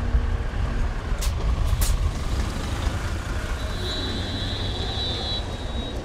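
Large coach bus driving past and pulling away, its diesel engine giving a steady low rumble. Two short sharp clicks come a little over a second in, and a steady high-pitched tone sounds for about two seconds in the second half.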